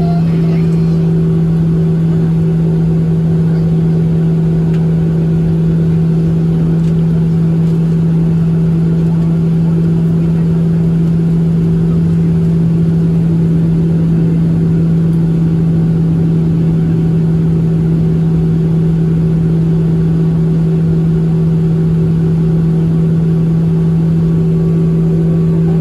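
Boeing 737-700 cabin drone from its CFM56-7B turbofan engines, heard from inside the passenger cabin: a steady hum with one constant low tone, holding the same pitch and loudness throughout.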